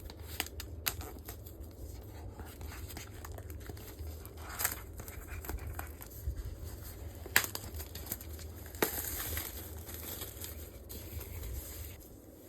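Plastic shrink-wrap being torn and crinkled off a vinyl record sleeve, in irregular rustles with sharp crackles and snaps.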